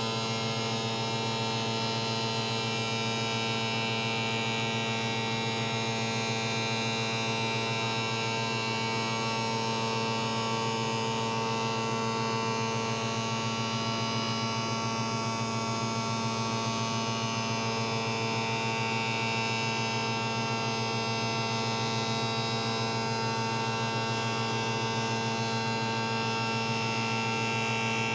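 Steady, even hum of an electric motor on woodworking machinery running, with no change in pitch or load.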